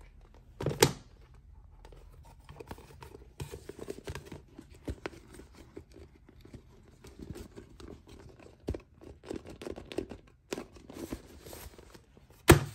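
Rubbery rubbing, creaking and rustling as a soft vinyl shark hand puppet is worked by hand, its jaw opened and squeezed. There is a loud knock about a second in and another near the end.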